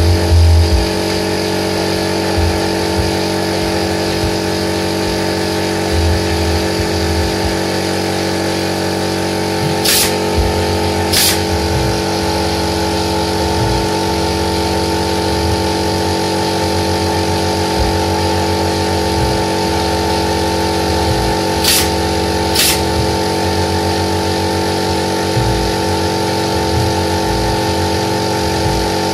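Pneumatic nail gun driving nails into wooden slats: two sharp shots about a second apart around ten seconds in, and two more around twenty-two seconds in. Under them runs a steady machine drone.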